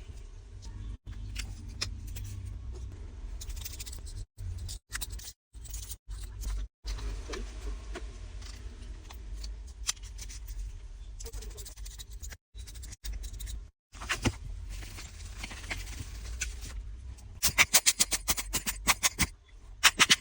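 Small tools and phone parts being handled in short cut-together takes: clicks, taps and scraping over a low hum, with a quick run of sharp clicks, about six a second, near the end.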